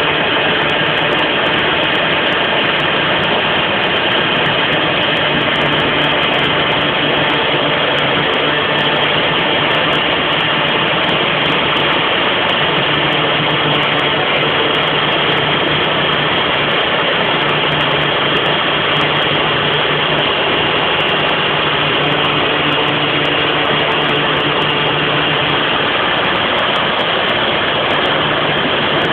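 CNC router spindle running steadily while its V-bit carves a shallow groove in veneered plywood: a continuous loud whir, with a low hum underneath that fades out and comes back a few times.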